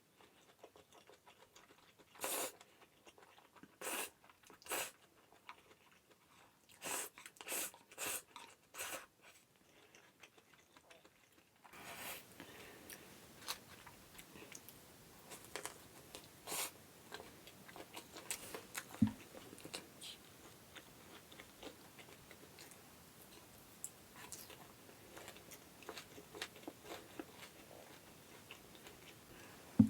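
A person eating crunchy food close to the microphone: a series of separate crisp crunching bites, then, after about twelve seconds, softer ongoing chewing with small wet clicks and smacks.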